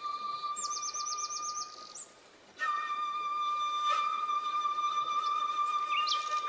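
Calm meditation background music: one long steady held note with birdsong chirping over it, a quick run of repeated chirps about a second in and more near the end. The note breaks off briefly about two seconds in, then returns.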